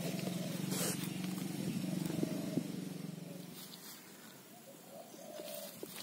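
Footsteps on grass over a low, steady hum that fades away after about three seconds, with a few soft knocks.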